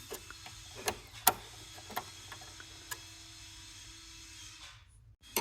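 Handling of small sewing machine parts: a handful of sharp clicks and light knocks, the loudest a little over a second in, over a faint steady hum.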